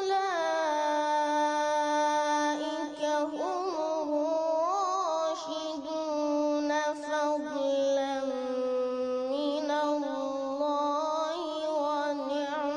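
Melodic Quran recitation in tajweed style: a single voice holding one long ornamented phrase with winding pitch turns and no pause for breath.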